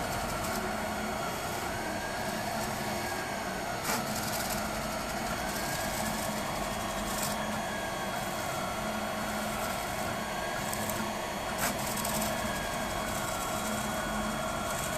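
Freebot 3D printer running: stepper motors whirring steadily, with a whine that rises and falls in slow, repeated sweeps and a couple of single clicks.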